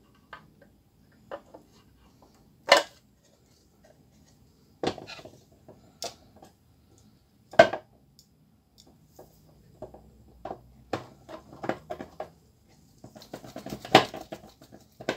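Hard plastic clicks and knocks as a blade strip is seated in a laser-printer imaging drum unit's plastic housing and a screwdriver works along it. Sparse single clicks, two sharp knocks about three and eight seconds in, then a quicker run of small clicks and taps near the end, with one more sharp knock.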